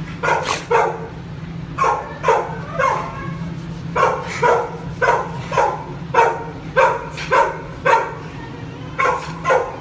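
A pit bull-type dog giving a rapid string of short, yelping barks, about two a second with a couple of brief pauses.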